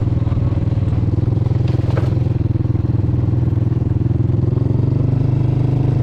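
Small petrol engine running steadily at an even speed.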